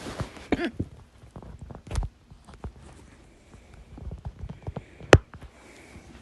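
A person hiccuping: a few sudden hiccups with fainter clicks between, the sharpest and loudest a snap about five seconds in.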